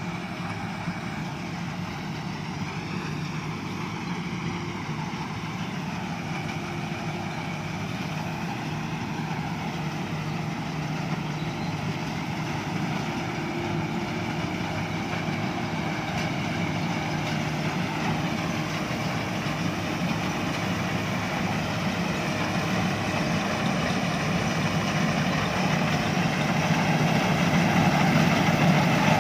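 Combine harvester's diesel engine running steadily with a low drone and machinery hum, growing steadily louder throughout.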